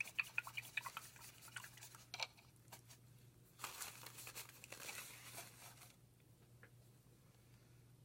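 Paintbrush being cleaned: a quick run of small taps and clicks for about two seconds, then a scrubbing rustle for about two seconds that stops before the end.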